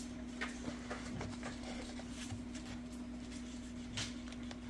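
Steady low hum with a few faint, light taps and rustles scattered through it.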